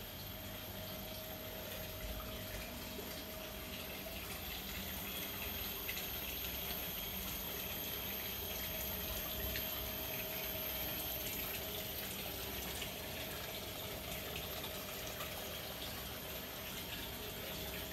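Water splashing steadily from a small stone spout into a swimming pool, with a faint steady hum underneath.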